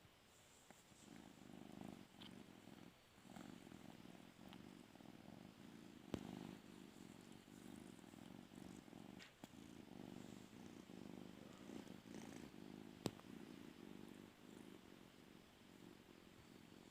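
Domestic cat purring, a low rumble in long stretches broken by short pauses, starting about a second in. Two sharp clicks stand out, one near the middle and one about three-quarters through.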